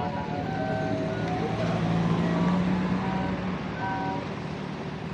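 Street traffic: a truck or car engine hums and swells in the middle as vehicles pass, over steady road noise. Short high tones at changing pitches sound over the top.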